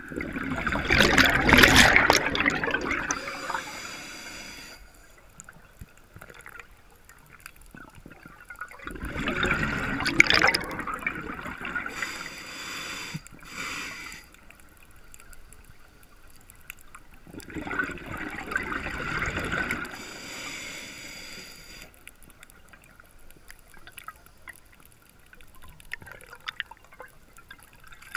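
A scuba diver breathing through a regulator underwater: three loud bursts of exhaled bubbles about eight seconds apart, each followed by a shorter, higher hiss from the regulator.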